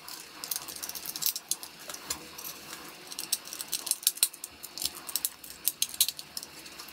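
Plastic cover of a Wi-Fi inline switch being fitted and screwed down with a hand screwdriver: a run of small, irregular clicks, taps and scrapes of plastic and metal.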